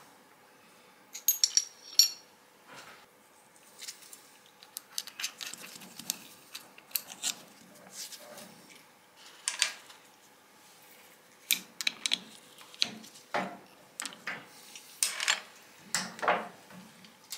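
Metal clinks, taps and rattles as a twist drill is changed by hand in a milling machine's drill chuck and the removed bit is set down on the steel table, with a couple of short ringing clinks about two seconds in.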